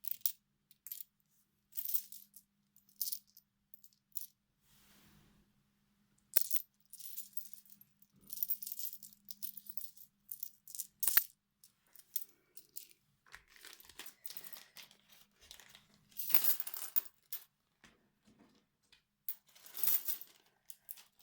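Plastic craft-supply bags being handled, rustling in short irregular bursts, with small pieces rattling inside and a few sharp clicks.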